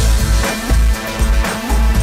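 Background music with a heavy bass beat, about two beats a second, over sustained electronic notes.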